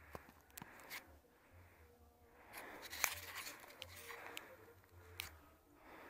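Handling noise on the camera's microphone: a gloved hand gripping and shifting the camera, with scattered sharp clicks and rubbing scrapes, heaviest around the middle.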